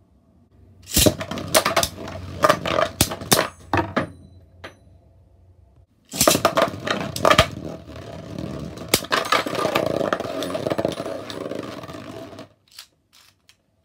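Beyblade Burst spinning tops rattling and clacking around a plastic Beystadium as they spin and collide, in two long bouts of clatter with sharp knocks. The first runs from about a second in to about four and a half seconds, the second from about six seconds to twelve and a half, and a few faint clicks follow.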